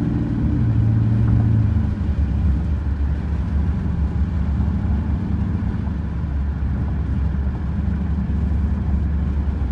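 In-cabin exhaust rumble of a straight-piped 5.7-litre Hemi V8 (gutted cats, no resonators or mufflers) in a 2013 Chrysler 300C, running steadily while cruising. About two seconds in, the note drops to a lower, deeper drone.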